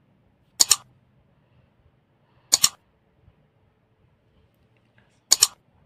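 Three quick double mouse-click sound effects, about two seconds apart, from a like-and-subscribe button animation.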